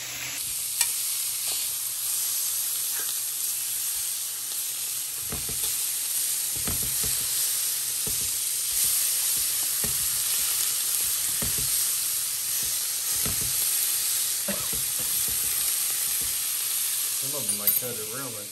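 Mahi-mahi fillets frying in hot oil: a steady sizzle, with a few soft low knocks now and then.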